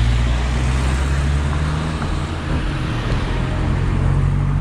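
Cars driving past close by, one after another: steady engine hum and tyre noise.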